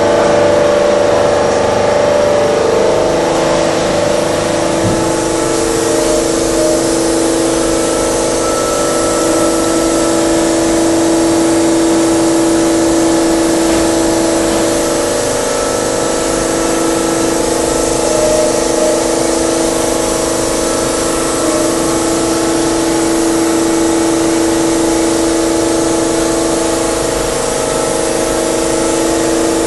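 High-speed CNC milling machine spindle cutting a shoe-sole mould in a roughing pass. It makes a steady, loud machining tone made of several held pitches over a hiss, with no let-up.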